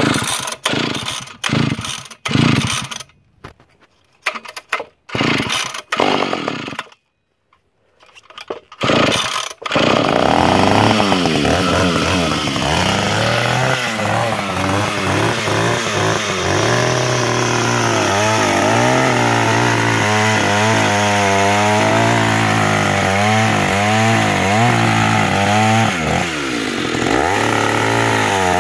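ZID Taiga 214 vintage two-stroke chainsaw being started: a series of short bursts as it is pulled over, then about ten seconds in it catches and runs on. Its engine is revved up and down repeatedly while it warms up.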